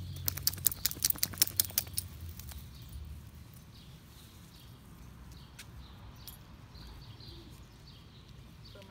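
A quick run of about a dozen sharp clicks and clinks over the first two seconds as two puppies wrestle, then faint scattered bird chirps.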